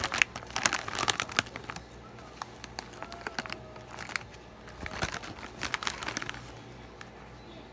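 Plastic snack bag crinkling as hands pull it open and rummage inside. The crackling comes in two spells, over the first couple of seconds and again from about four and a half to six and a half seconds in, with a quieter stretch between.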